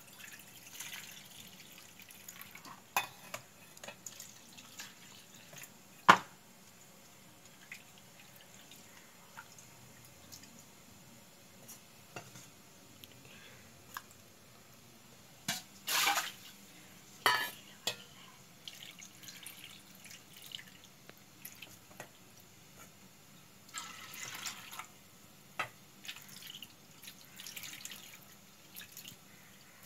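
Toor dal being washed by hand in a stainless steel bowl: water sloshing, dripping and being poured off, with scattered light knocks of the steel vessels and one sharp knock about six seconds in.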